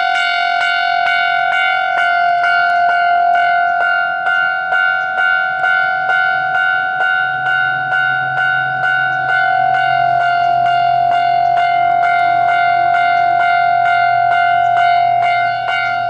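Japanese level crossing's electronic warning bell ringing loudly: one high tone struck over and over in a fast, even rhythm, warning of an approaching train. A low hum joins about seven seconds in.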